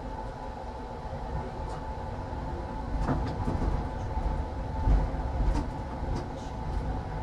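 Tram running along the track, heard from the driver's cab: a steady low rumble of wheels on rail under a steady humming tone, with a few louder knocks about three and five seconds in.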